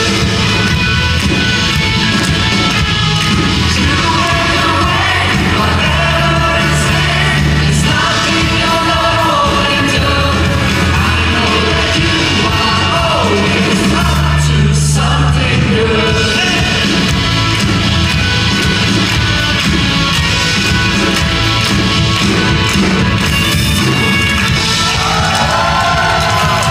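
Live worship band playing a song, with amplified singing over acoustic guitar and held bass notes.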